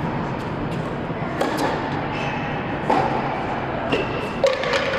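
Tennis rally on an indoor hard court: sharp pops of the ball being struck by rackets and bouncing on the court, four distinct hits spaced roughly a second apart, the loudest near the end, echoing in the large hall over a steady background hiss.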